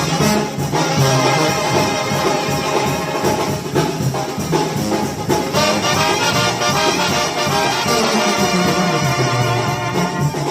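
Mexican banda music led by trombones, with trumpets and a low brass bass line under them.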